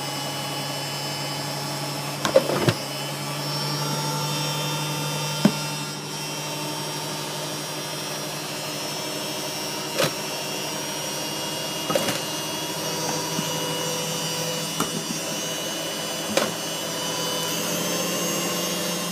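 Candy GODF800 front-loading washing machine on its spin cycle with the door open, the drum turning at about 1,000 rpm by the owner's reckoning, with a steady motor whine and hum. Sharp knocks come every few seconds.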